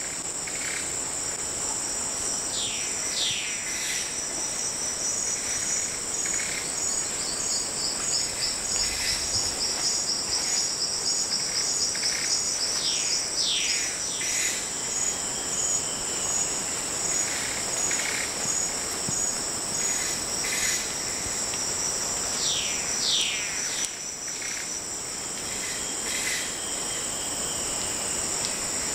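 Tropical forest ambience: a steady high-pitched insect chorus, with one insect pulsing rapidly for several seconds near the middle. Descending whistled bird calls sound three times.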